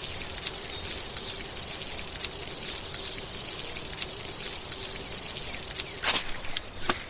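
Steady hiss of rain or spraying water, with a few sharp splashes from about six seconds in.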